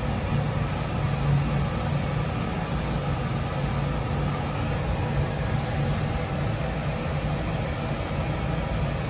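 Steady low hum and rumble of commercial boiler equipment running, even throughout.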